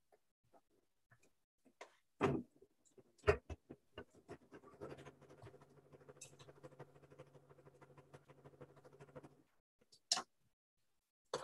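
Sewing machine stitching a seam: a steady hum with rapid needle ticking that starts about five seconds in and stops after about four and a half seconds. A couple of short knocks come before it.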